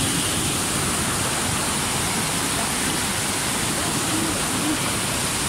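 Steady rushing of whitewater from a waterfall stream tumbling over boulders, an even, unbroken hiss of moving water.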